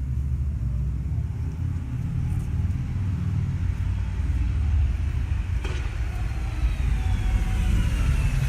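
Low, steady rumble of a car driving along a town street, heard from inside the car. A faint high tone glides slowly down in pitch over the last couple of seconds.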